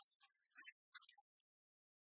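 Near silence, broken by faint, scattered short crackly blips.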